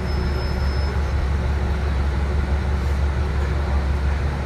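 Steady low rumble heard inside a Nova LFS transit bus running on compressed natural gas: the engine and drivetrain under way.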